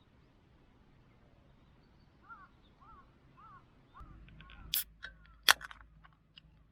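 Four short chirping calls about half a second apart, then two loud sharp clicks followed by a few small ticks.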